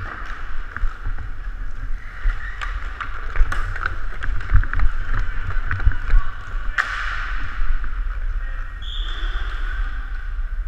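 Inline hockey play heard from a helmet-mounted camera: a steady rush and low rumble from skating and air over the helmet, with scattered clicks and knocks of sticks and puck, one sharp crack about seven seconds in, and a brief high whistle blast, likely the referee's, near nine seconds.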